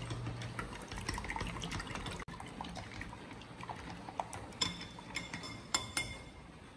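Wooden chopsticks whisking beaten eggs in a glass bowl: a quick wet clicking and sloshing, with a few sharper ringing taps of the chopsticks on the glass in the second half.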